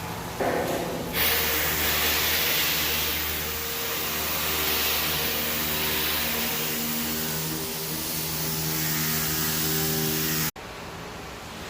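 Flux-core arc welding: the arc sizzles and crackles steadily over a low electrical hum, starting about a second in and stopping abruptly near the end.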